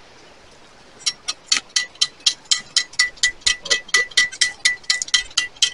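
Metal-detecting pinpointer beeping rapidly, about four short beeps a second, starting about a second in: it has picked up metal close by in the ground.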